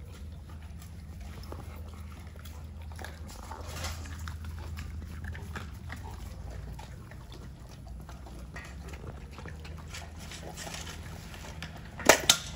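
Dogs eating raw chicken and meat: wet chewing and crunching of bone, with scattered small clicks. Near the end come two sharp, much louder cracks.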